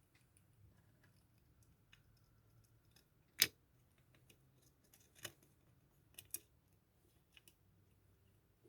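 A few faint, sharp clicks and light taps of small Kawasaki KLR 650 carburetor parts being handled and fitted back together during reassembly, the sharpest about three and a half seconds in.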